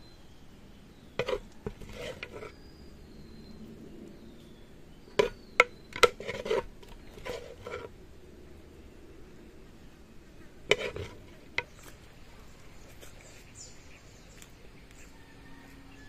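A ladle knocking and scraping against a pot and a plate as thick stewed meat is scooped out and piled onto the plate, in three short clusters of clatters. Faint insects and birds sound in the background.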